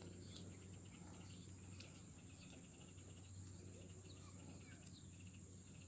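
Near silence: faint outdoor ambience with a steady high-pitched insect drone and a faint low hum.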